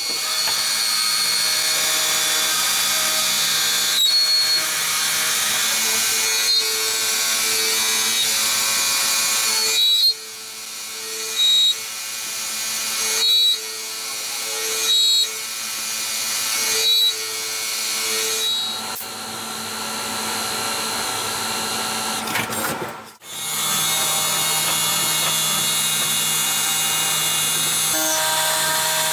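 CNC mill-turn lathe machining an aluminium part: the spindle and live tooling run with a steady whine over the hiss of cutting. The sound changes abruptly twice, and through the middle the cutting comes in short spells repeating every second and a half or so.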